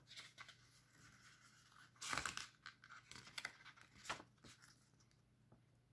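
Glossy paper pages of a CD booklet being turned and unfolded by hand: a series of short rustles and flaps, the loudest about two seconds in.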